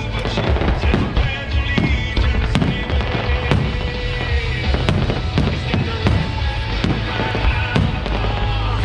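Aerial fireworks going off in a rapid string of bangs and crackles, with music playing underneath.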